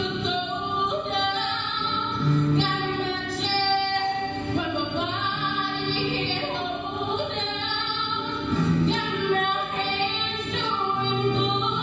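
A woman singing a Broadway show tune solo into a handheld microphone, with long held and bending notes.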